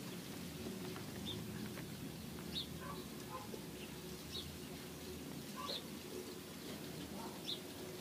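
Small wild birds calling: short, high chirps every second or two.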